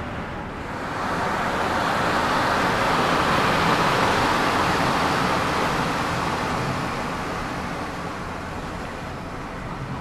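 Car driving through a mountain stream that pours across the road, heard from inside the car: a rush of water swells over the first few seconds and fades again, over the steady running noise of the car.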